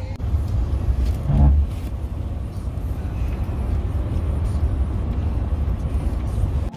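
Steady low road and engine rumble inside a moving car's cabin, with a brief pitched sound about a second and a half in.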